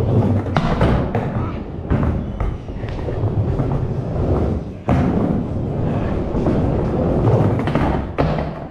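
Skateboard wheels rolling over a wooden bowl with a steady rumble, broken by sharp knocks of the board about half a second, two seconds and five seconds in. The rumble dies away near the end as the board comes to rest.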